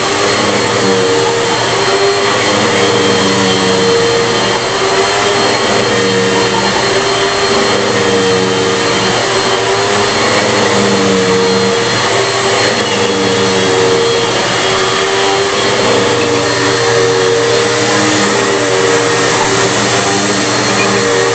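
A Bissell PowerForce bagless upright vacuum cleaner running steadily, with its motor note wavering slightly in a slow repeating pattern every couple of seconds.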